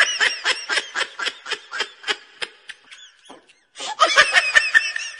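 High-pitched laughter in quick ha-ha pulses, about four a second, breaking off for about half a second past the middle before a second burst near the end.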